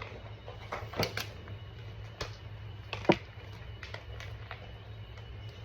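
Plastic packaging crinkling and clicking as small squishy toys are handled and unwrapped: irregular light crackles, with one sharp click about three seconds in.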